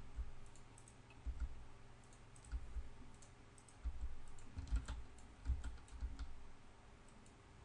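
Scattered key presses and clicks on a computer keyboard and mouse, each with a dull low thump. They come in small groups, busiest about four to six seconds in, and stop near the end.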